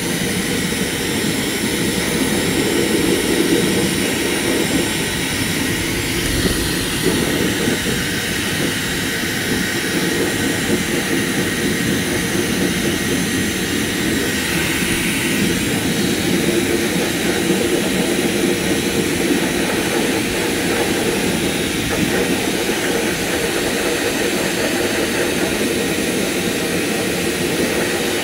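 Hair dryer blowing steadily on a small dog's fur: an even, loud rushing of air with a faint high motor whine.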